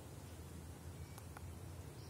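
Faint outdoor background: a steady low rumble with light hiss, and two or three faint short high chirps or ticks about a second in.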